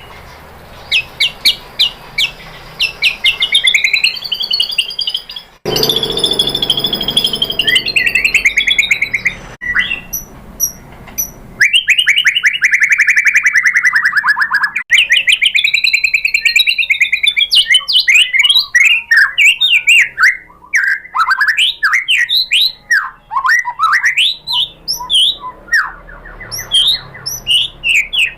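White-rumped shama singing a long, varied song: fast chattering note series, whistled phrases that rise and fall, and a rapid trill that slides down in pitch about halfway through.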